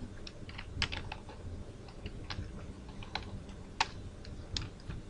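Typing on a computer keyboard: scattered, uneven keystrokes, a couple to a few a second.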